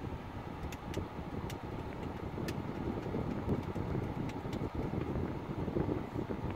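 Sharp plastic clicks, about five, as the side buttons of an Ownice C500 car head unit are pressed, over the steady low rumble of the car's cabin.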